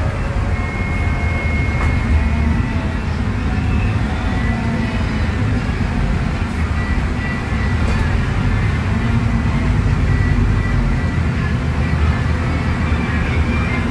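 Interior sound of a Scania K250UB midibus under way: its Scania DC09 five-cylinder diesel runs steadily with a low rumble of road and body noise. A faint high whine comes and goes.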